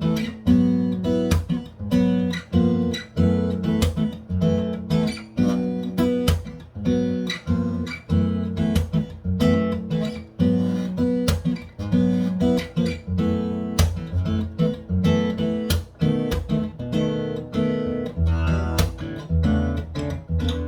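Taylor 714ce X-braced acoustic guitar being played, with chords and single notes struck in a steady rhythm of a few attacks a second. Each attack rings on, over a deep bass.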